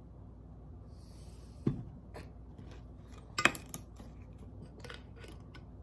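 A few light clinks and knocks of a beer glass and bottle being handled on a table. The loudest knock comes about three and a half seconds in, another about halfway through the second second, and there are small ticks in between.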